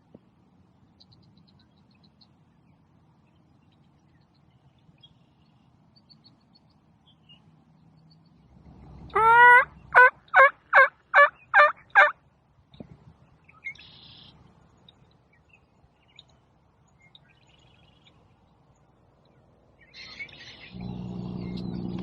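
Wild turkey gobbling once: a rising note that breaks into a quick run of about six rattling pulses, with faint songbird chirps in the background. A steady low hum sets in near the end.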